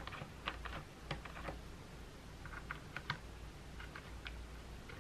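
Light, irregular plastic clicks and taps as fingers handle the plastic nozzles of an electric balloon pump while its motor is off. The clicks come in clusters near the start and again about three seconds in.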